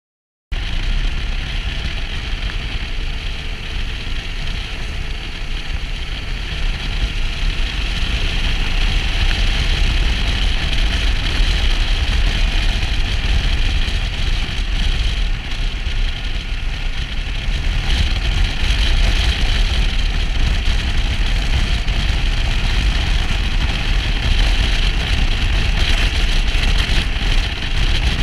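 Motorcycle engine running at a steady cruise, mixed with strong wind noise on the microphone; it cuts in suddenly about half a second in.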